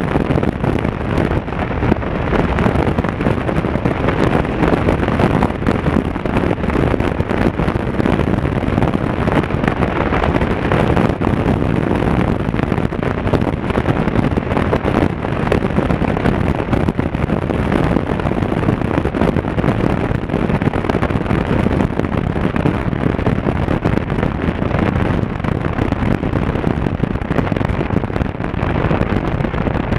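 Wind buffeting the action camera's microphone at riding speed, a steady rough rush over the Honda Africa Twin CRF1000L's parallel-twin engine running at cruise.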